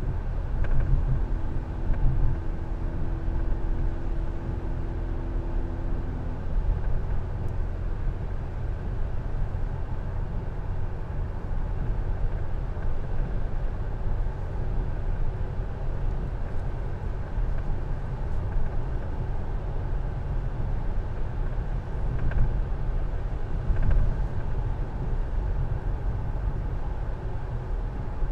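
Road noise heard inside a moving car on a wet road: a steady low rumble of engine and tyres with a hiss from the wet pavement, and a few faint knocks from the windshield wipers.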